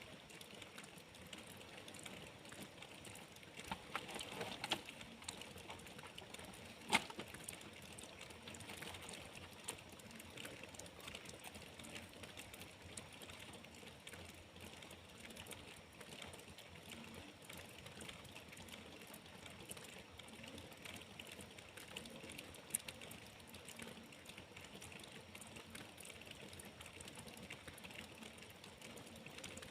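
Faint steady rain with the patter of many small drops, and a few sharper drip ticks about four to five seconds in and again at about seven and twenty-three seconds.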